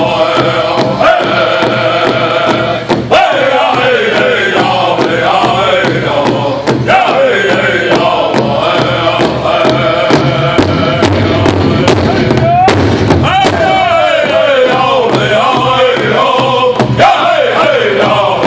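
Powwow drum group: several men striking one large bass drum together in a steady, even beat while singing a chant in unison, the phrases sliding down in pitch.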